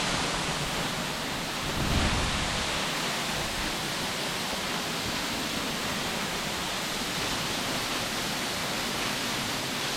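Waterfall rushing steadily, an even roar of falling water, with a brief low thump about two seconds in.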